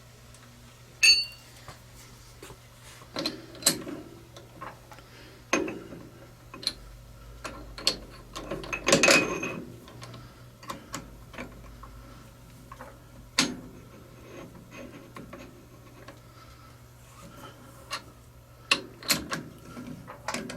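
Metal tools and parts being handled and set down at a lathe bench: scattered clinks and knocks, a ringing metallic clink about a second in and a louder clatter about nine seconds in, over a steady low hum.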